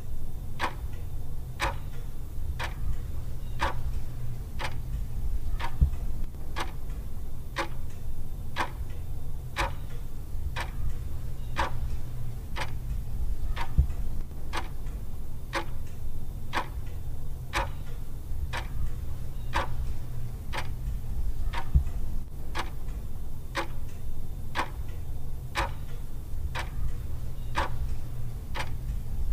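Clock ticking steadily, a tick a little under every second, over a steady low hum.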